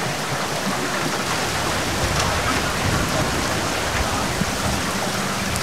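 Heavy rain falling steadily, a dense, even hiss of drops on the water and surroundings.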